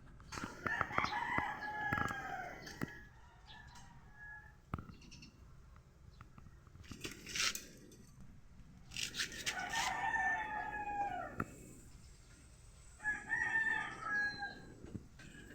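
Roosters crowing three times, each a long call that falls in pitch at the end, with scattered clicks and knocks between.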